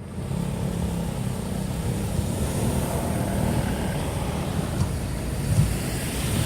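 Steady low rumble of outdoor street noise with passing traffic.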